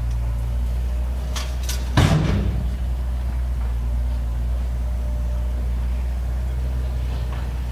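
Diesel engine of a Bobcat 331D mini excavator running steadily under work, with one loud clank about two seconds in and a few lighter knocks just before it.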